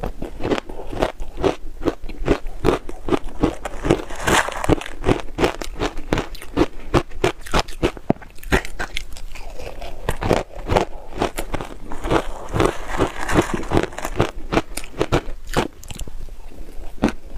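Close-up chewing of shaved ice coated in purple sweet potato powder: a steady run of crisp crunches, several a second.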